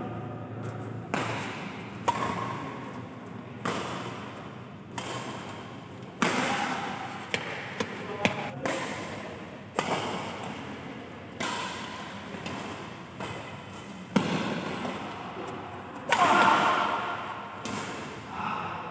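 Badminton rally: sharp smacks of rackets striking the shuttlecock, one every second or so, each ringing briefly in the hall. The loudest stretch comes near the end.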